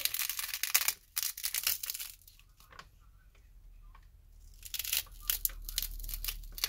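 Heat-softened screen adhesive crackling and tearing as the old LCD of a Samsung Galaxy A3 is peeled off the phone's frame. There are two spells of rapid crackle, the first in the opening two seconds and the second starting about four and a half seconds in.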